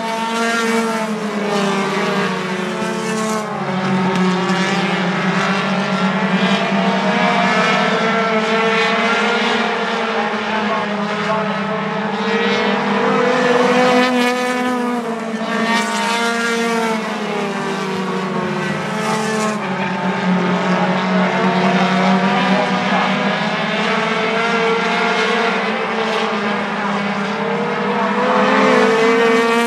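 Several four-cylinder compact stock cars racing in a pack, their engines running hard, with the pitch rising and falling over and over as the cars accelerate and lift around the oval.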